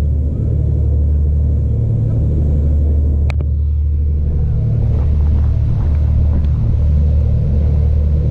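Sportfishing boat's engine running under way, a steady low drone, with one sharp click about three seconds in.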